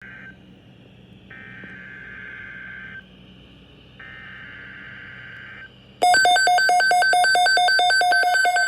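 Emergency Alert System SAME header: short bursts of buzzy digital data tones, the first cut off and then two more. About six seconds in, a much louder, rapidly pulsing electronic alert tone starts, signalling that a warning message follows.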